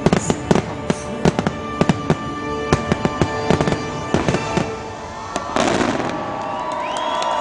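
Rapid fireworks bursts and crackles over the show's orchestral music in the finale of a theme-park fireworks show. About five and a half seconds in, the bangs give way to a surge of crowd cheering, with whistles gliding up and down.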